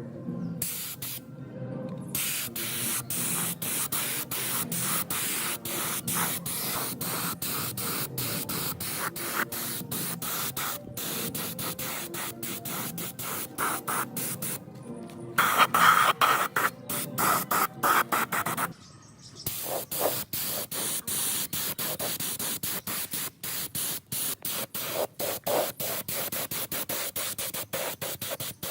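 Hiss of a spray or compressed-air jet, repeatedly stopping and starting with many brief gaps, louder for a few seconds past the middle.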